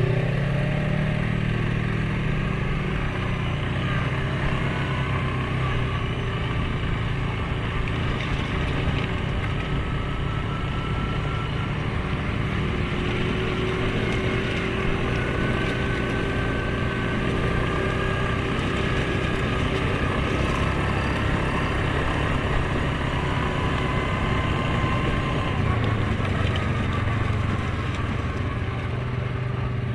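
Suzuki KingQuad 750 ATV's single-cylinder engine running steadily while riding a trail, with a faint higher whine that rises and falls a little.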